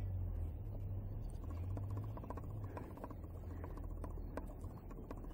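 Tornjak puppies scuffling and playing on grass: light scattered clicks and rustles over a steady low rumble.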